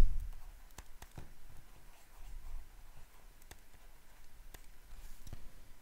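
A few scattered light clicks over quiet room tone, from handwriting a word onto a slide with a computer input device.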